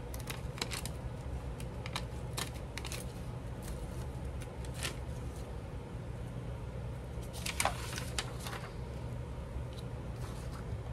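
Scissors snipping a paper doily, heard as irregular sharp clicks with paper rustling, the loudest snip about three-quarters of the way through, over a steady low hum.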